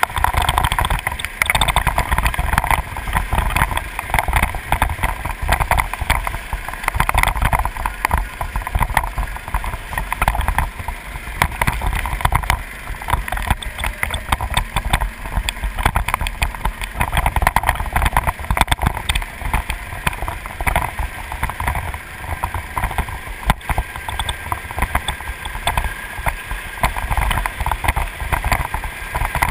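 Racing go-kart engine running at speed on a lap, its note swelling and fading every few seconds, with heavy wind buffeting on the microphone.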